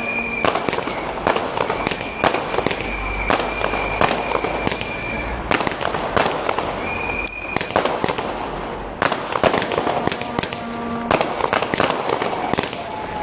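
Fireworks and firecrackers going off in a dense, irregular run of sharp bangs and crackles. A high, steady whistling tone sounds over them a few times, the longest for about three seconds near the middle.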